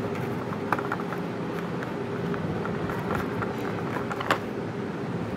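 Small scattered clicks and taps of hard plastic being handled as earbuds are gripped and lifted from a plastic packaging tray, with a sharper click a little under a second in and the loudest click near the end. A steady background hum runs underneath.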